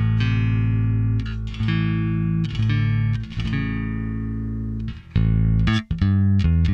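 Fender Player II Precision Bass played through a bass amp's line output with the contour and bright switches on: held low notes changing about once a second, then a quicker run of notes from about five seconds in.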